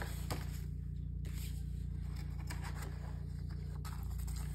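Paper being handled: a card-stock order form and a shipping envelope shuffled over a cardboard box, giving a few soft scrapes and taps over a steady low hum.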